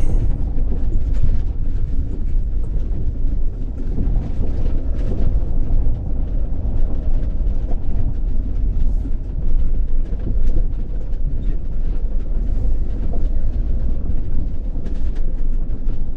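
Mercedes-Benz Sprinter van driving at road speed: a steady low rumble of road and wind noise with scattered light ticks.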